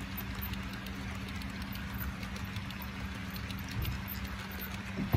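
Model coal train's loaded hopper cars rolling along the layout track: a steady low rumble and hum with light, scattered clicking from the wheels on the rails. A single sharp knock comes right at the end.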